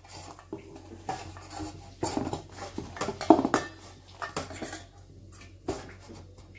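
Metal kitchen utensils clinking and knocking at irregular intervals while atta dough for rotis is prepared.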